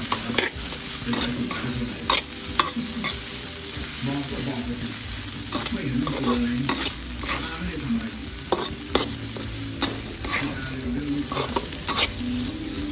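Minced fish and chili paste sizzling in a wok as it is stir-fried until the fish cooks through, with the spatula repeatedly scraping and tapping against the wok in short sharp clicks.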